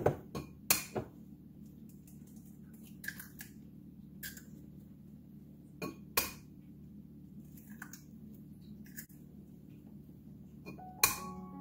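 Eggs being cracked against a bowl: a string of sharp taps and clinks of shell and dish, spaced irregularly, over a steady low hum.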